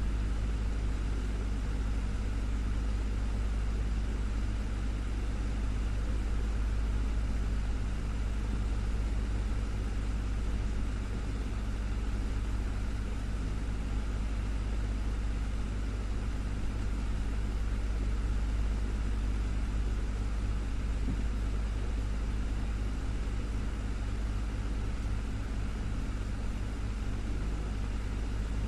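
Desktop electric fan running steadily, a constant low hum under an even airy whoosh.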